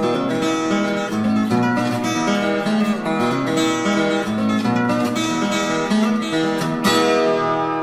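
Background music: acoustic guitar playing, plucked and strummed notes in a lively run.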